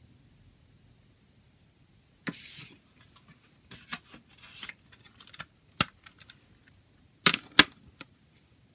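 A CD booklet and plastic jewel case being handled: a short sliding rustle about two seconds in, scattered light clicks and rustling, then two sharp clacks close together near the end as the plastic case is set down on the table.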